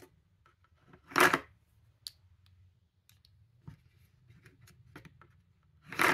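Batteries being pulled one at a time from the bottom slot of a 3D-printed plastic battery dispenser: two short rattles of batteries against plastic, about a second in and again near the end, with light clicks between.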